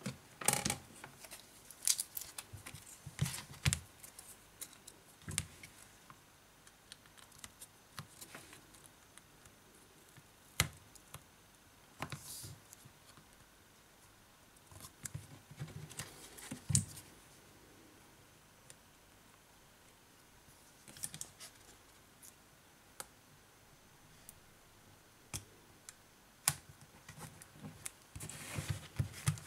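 Hands handling the opened Sony Xperia Z2 Tablet and its flex cables: scattered small clicks, taps and brief rustles, with quiet stretches between.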